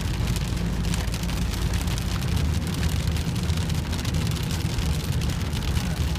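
Rain falling steadily, with many fine drop ticks over a constant low rumble.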